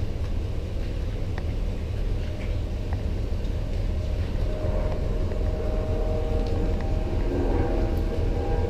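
A vehicle on the move: a steady, heavy low rumble of engine and road noise, with a faint steady whine joining about halfway through.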